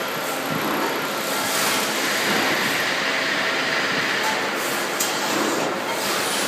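Steady mechanical hum and hiss from a laser welding machine with a rotating stage as it welds a stainless steel cup, swelling slightly in the first half, with a single click about five seconds in.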